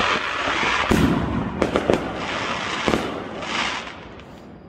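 Aerial fireworks bursting: several sharp bangs over steady crackling, the loudest about a second in and a pair a little before the middle, dying away near the end.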